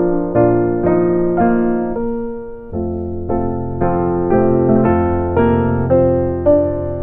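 Gentle keyboard music in a piano sound, with notes struck about twice a second over a sustained low bass. The playing thins briefly halfway through before the bass changes.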